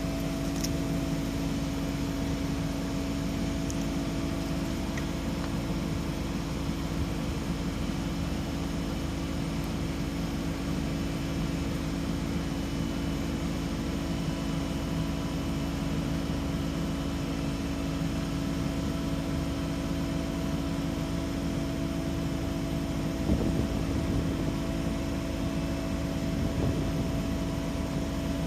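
Heavy diesel engine of paving machinery running steadily at one constant speed, a low, even drone. A brief knock sounds about 23 seconds in.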